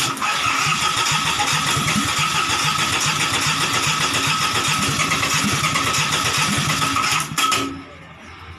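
Yanmar three-cylinder marine diesel cranked on its electric starter: a steady whine over fast rhythmic chugging for about seven and a half seconds, then it cuts off suddenly.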